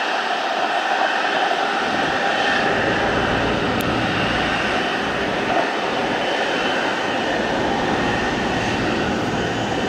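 Airbus A330-243's Rolls-Royce Trent 700 turbofan engines running at low taxi thrust as the airliner taxis past: a steady jet hiss with a faint high whine.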